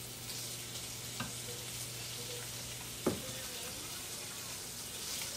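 Bacon sizzling and frying in a non-stick pan, a steady hiss, with two sharp knocks of wooden chopsticks against the pan, the louder about three seconds in. A steady low hum runs underneath.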